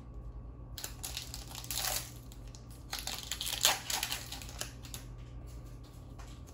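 Foil wrapper of a Dragon Ball Super Card Game booster pack crinkling and tearing as it is opened by hand. There are two bursts, one about a second in and a longer one around three to four seconds in.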